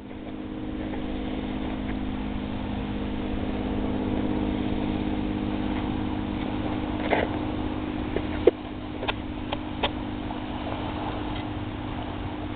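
An engine running steadily, with a handful of sharp clicks about seven to ten seconds in.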